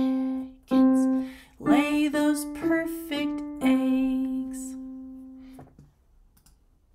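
Digital piano and a woman singing the closing phrase of a simple children's song, ending on a held note that fades out about six seconds in.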